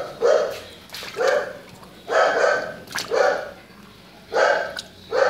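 A dog barking over and over, about one bark a second.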